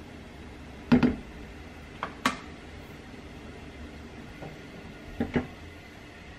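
Light knocks and clunks of kitchenware: a silicone slotted spoon working in a white enamel saucepan and then being laid down, and the saucepan being lifted off a gas burner. There are about half a dozen short knocks, the loudest about a second in.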